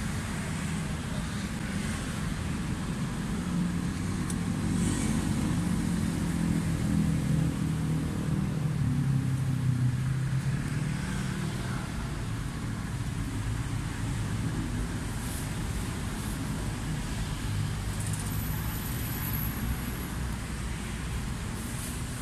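Steady low rumble of road traffic, with a vehicle engine running louder for several seconds midway.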